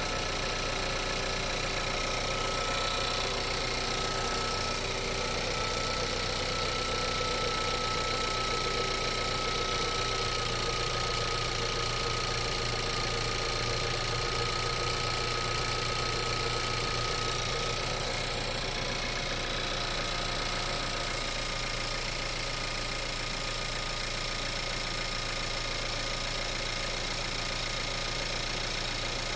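VW 1.4 TSI CZDA four-cylinder turbo petrol engine idling steadily while it warms up after a start.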